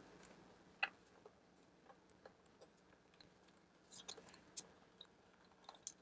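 Faint, sparse light clicks and taps, the loudest about a second in and a small cluster around four seconds in: a precision screwdriver and tiny case screws being handled on a MacBook Pro's aluminium bottom case.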